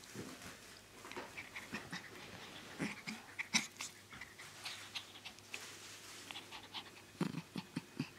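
A small puppy panting and snuffling quietly in rough play, mouthing at a hand, in short irregular puffs.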